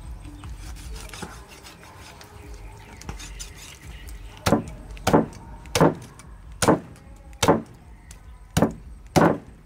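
Meat cleaver chopping a raw pork leg on a thick wooden chopping block: about seven heavy chops, each a sharp thud into the wood, starting about halfway through and coming a little under a second apart.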